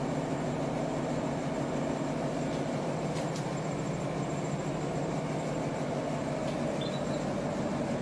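Steady low mechanical hum, even in level throughout, with a faint short high-pitched chirp near the end.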